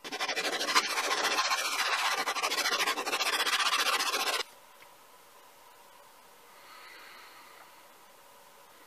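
Cast-iron plane frog lapped face-down on abrasive paper over a flat plate: a steady, rapid scraping that stops abruptly after about four and a half seconds, leaving faint room tone. The lapping shows how flat the frog's face is.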